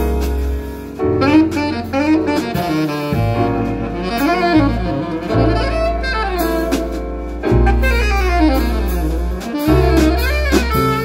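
Live jazz combo: a saxophone playing a melodic line with pitch slides and runs over electric bass guitar, piano and drum kit with cymbals.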